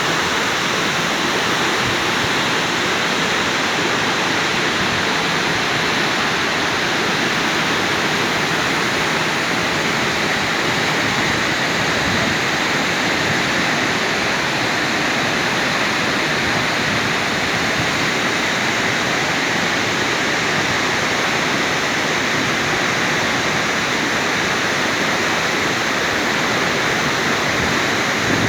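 Waterfall and its cascades rushing: a loud, steady roar of falling water, unchanging throughout.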